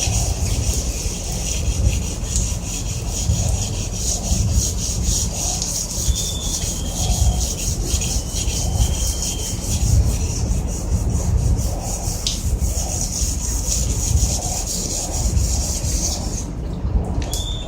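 Rapid back-and-forth rubbing strokes on the surface of a water heater as it is rubbed down for cleaning and painting, over a steady low rumble.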